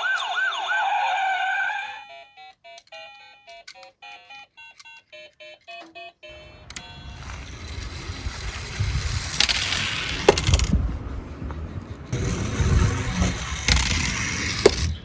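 Toy police car's electronic siren sounding in quick repeated rising sweeps, cutting off about two seconds in. A short tune of electronic beeps follows, then the rattling rumble of toy cars rolling down a slope, broken twice by sharp clacks.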